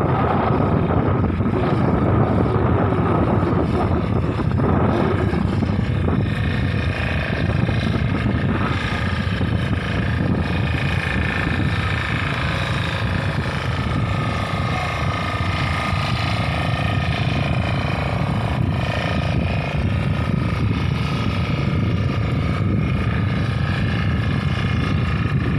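Steady wind and sea noise, with the motor of a small fishing boat running out on the water.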